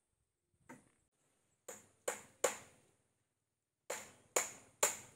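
Seven sharp knocks at uneven intervals. A faint one comes first, then three in quick succession, and after a pause of over a second three more, louder. Each dies away quickly.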